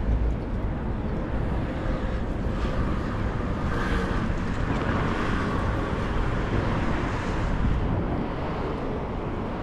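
City street traffic at an intersection: cars passing and turning, a steady rumble of engines and tyres on the road.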